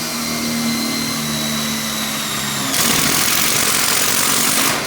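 Power drill spinning a step drill bit to enlarge holes in a steel garage door panel: a steady motor whine, turning louder and harsher about three seconds in as the bit grinds through the metal.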